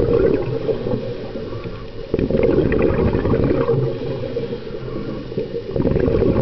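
Scuba diver's exhaled regulator bubbles, heard underwater: a loud bubbling that comes in surges of a second or two, with quieter stretches between breaths.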